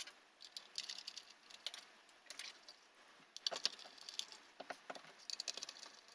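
Screwdriver working the small hard-drive mounting screws out of a 2009 Mac Mini: faint, irregular clusters of small metallic clicks and scrapes.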